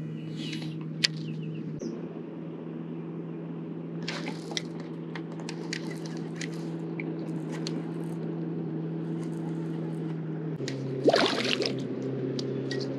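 A small boat motor humming steadily, its pitch stepping down about ten and a half seconds in, with water splashing and swishing against the hull.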